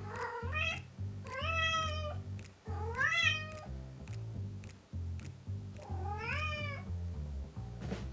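Female Munchkin kitten in heat meowing: four separate calls, each rising then falling in pitch, over background music with a steady beat.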